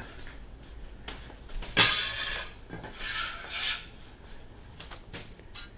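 A spatula scraping against a glass mixing bowl while diced apples are stirred into a thick fritter batter. There are two scraping swishes, about two and three seconds in.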